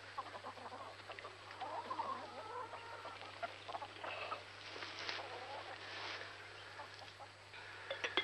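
Chickens clucking, a run of short, overlapping calls, over a low steady hum.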